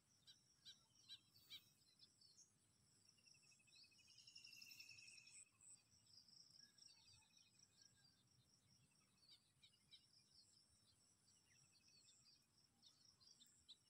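Near silence with faint scattered bird chirps, including a short buzzy trill a few seconds in, over a steady thin high insect hum.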